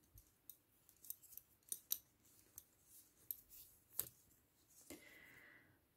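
Faint, irregular clicks of metal double-pointed knitting needles from a five-needle set tapping against each other as stitches are worked, with a brief soft hiss about five seconds in.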